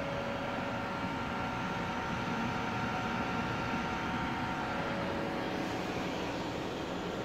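Cooling fans of a homemade Peltier mini air conditioner running: a steady whirring hiss with a few faint steady whining tones.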